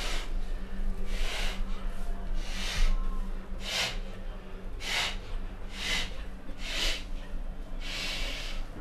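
A person breathing hard and noisily, close to the microphone: about eight sharp, hissing breaths, roughly one a second, over a steady low hum.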